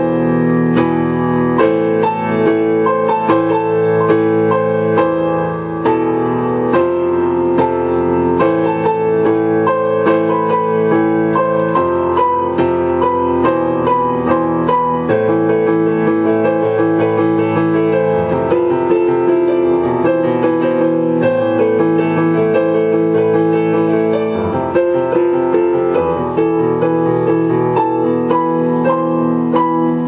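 Piano music: a melody of struck notes over sustained chords, with the bass changing every second or two.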